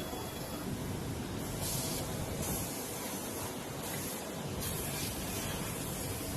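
Steady factory machine noise with intermittent stretches of hissing, like air being blown or vented, from EVA foam moulding machines.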